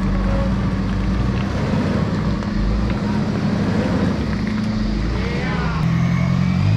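Mitsubishi Pajero Sport's diesel engine running steadily as the 4x4 crawls through deep mud, with faint voices in the background. Near the end the engine note shifts to a different, steadier pitch.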